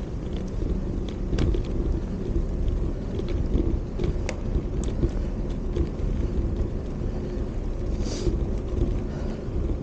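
Steady low rumble of wind buffeting the action camera's microphone on a moving bicycle, mixed with tyre noise on a paving-stone path. A few sharp clicks and rattles from the bike come through, one about a second and a half in and two more around four to five seconds.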